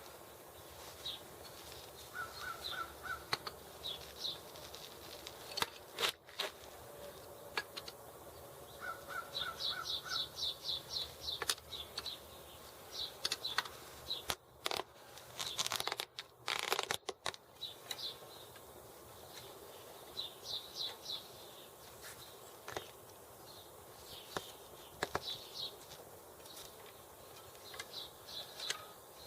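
Screwdrivers being used as tire levers to pry a rotten tire off a bicycle rim: scattered clicks and scrapes, loudest in a cluster around the middle. Birds chirp in repeated short series in the background.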